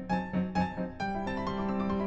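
Background piano music: a few quick repeated notes, then a sustained chord from about a second in.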